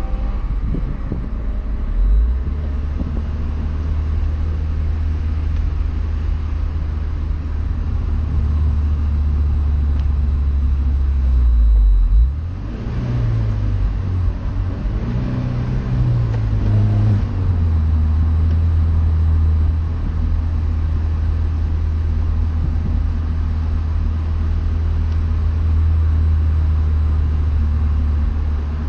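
BMW Z4 E85 2.0i's four-cylinder engine running under way, recorded on a mobile phone's microphone: a steady low drone. It drops out briefly about twelve seconds in, climbs in pitch for a few seconds, then settles back into a steady drone.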